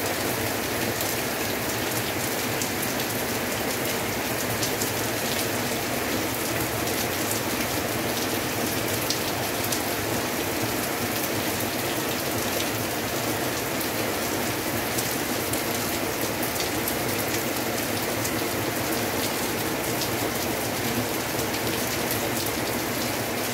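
Heavy rain pouring steadily: a dense, even hiss with the ticks of individual drops landing close by.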